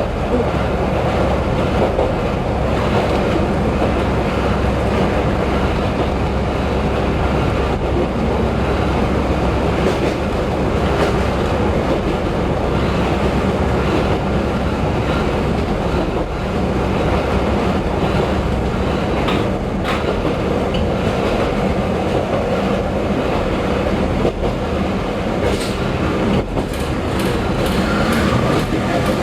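Diesel train running along the line: a steady engine drone under the rumble of the wheels on the rails, with a quick run of sharp rail clicks near the end.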